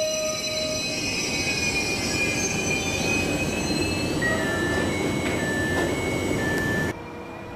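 PKP Intercity passenger coaches rolling slowly along a curved platform track: a steady rumble of wheels on rail, with high, steady squealing tones that come and go. The sound cuts off abruptly about seven seconds in.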